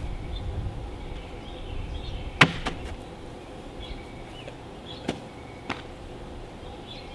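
Cornhole bean bags landing with sharp knocks: a loud one about two and a half seconds in, then two lighter ones around five and a half seconds in. Faint bird chirps in the background.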